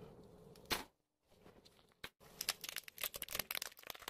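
Car tyre crushing small objects on concrete: one sharp crack just under a second in, then after a short gap a rapid run of crackling and snapping as brittle plastic toys break under the tyre.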